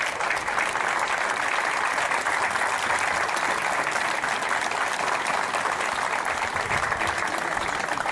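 A crowd applauding, steady clapping.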